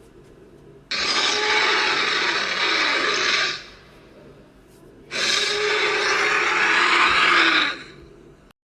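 Two sound effects, each a long breathy hiss lasting about two and a half seconds, with a quiet gap of under two seconds between them.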